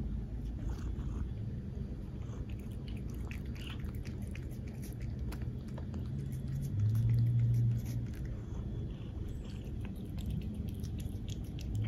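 A domestic cat licking a purée treat from a squeeze tube: a run of quick wet licking clicks and smacks. A low hum swells for about a second midway through.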